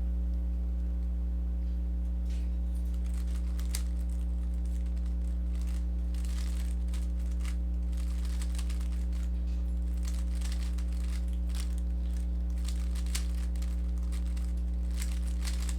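A plastic Rubik's cube being turned through an algorithm, its layers clicking and rattling faintly in quick runs, over a steady low hum that is louder than the turning.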